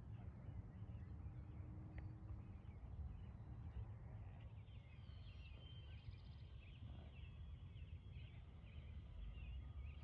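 Low wind rumble on the microphone throughout. From about four and a half seconds in there is a string of faint, short, high chirps.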